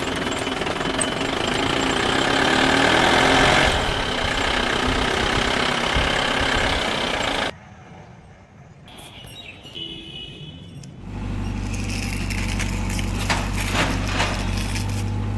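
Heavy machinery and engine noise that cuts off abruptly about seven seconds in. After a quieter gap, a steady low engine hum starts near the middle and runs on.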